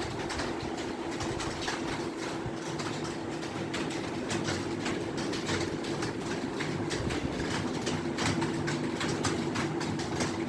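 Fast typing on an Acer computer keyboard: a rapid, uneven run of key clicks over a steady hum.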